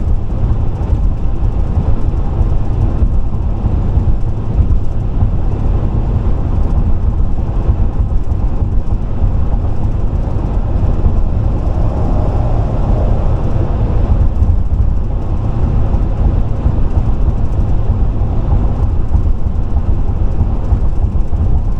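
Steady low rumble of a car driving at interstate speed: tyre, wind and engine noise with no breaks.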